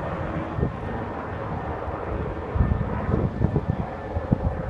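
Wind buffeting the microphone over a steady outdoor rumble, with a run of hard gusts in the second half.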